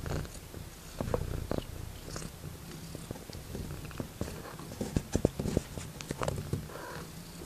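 Young kittens purring, a steady low rumble, with scattered short clicks and knocks that come thickest and loudest about five seconds in.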